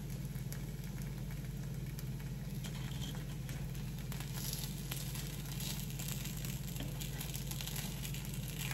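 Appams frying in a little oil in an appam pan, sizzling steadily while they are turned over one by one, with faint clicks and scrapes of a spoon and fork against the pan.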